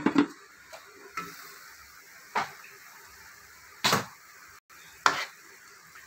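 Pork pieces frying with a faint steady sizzle in a metal pot. A metal lid clatters at the start, then a metal ladle scrapes and knocks against the pot about four more times while stirring.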